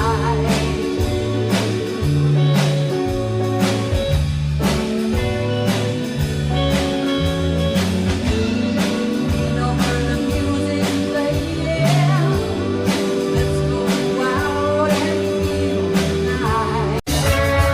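Band music with singing, guitar, bass and a steady drum beat. The sound drops out for an instant near the end.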